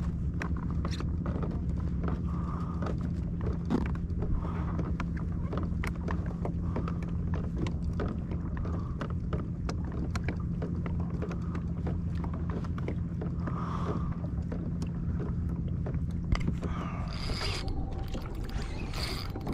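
Kayak pedal drive clicking and creaking irregularly as it is pedalled, over a steady low hum that changes about seventeen seconds in.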